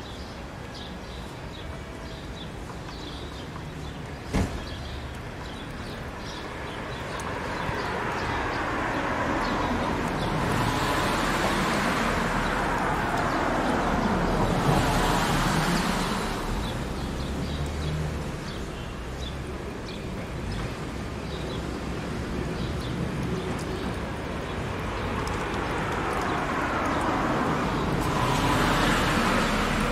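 Road traffic: vehicles passing, the noise swelling and fading twice, with one sharp knock about four seconds in.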